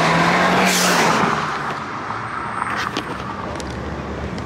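Road and engine noise heard from inside a moving car's cabin, with a loud rushing swell in the first second or so, then a steadier, quieter hum with a few light clicks.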